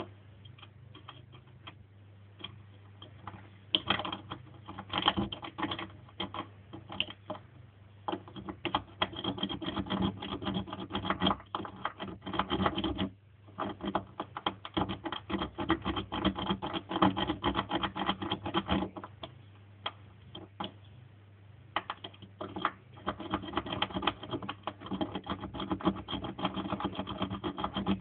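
Lock pick, a snake rake under a tension wrench, raked in and out of a single-sided wafer lock: fast, irregular metallic clicking and scraping of the pick over the wafers, coming in bursts with a short break about halfway and a quieter stretch later on.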